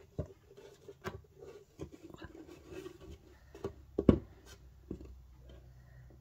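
Play-Doh pieces set down and moved about on a wooden tabletop: a series of light knocks and taps, the loudest about four seconds in, with soft rubbing between.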